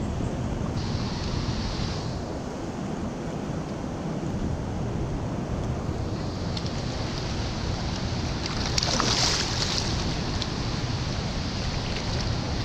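Rushing of a fast, high river current, with wind buffeting the microphone; the water noise grows louder and hissier for a moment about nine seconds in.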